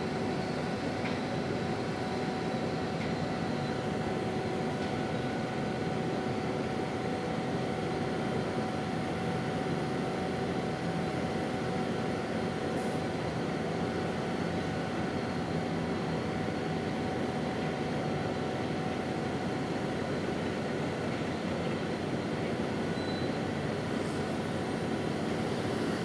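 Steady machinery drone from a large bulk carrier's engines as it comes alongside the berth, with a faint steady whine running through it.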